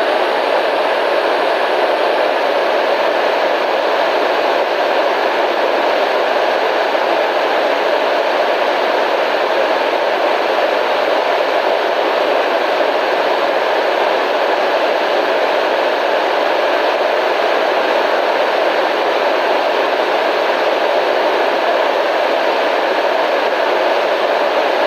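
Steady static hiss, constant and unchanging, heaviest in the middle of the range and thin in the deep bass and the highest treble.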